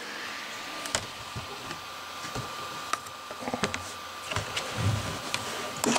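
Scattered light clicks and a few dull knocks from objects being handled and set down on a tabletop, over a faint steady high-pitched hum.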